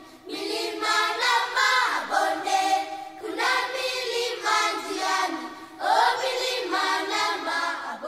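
A choir singing, several voices together in phrases with brief breaks between them.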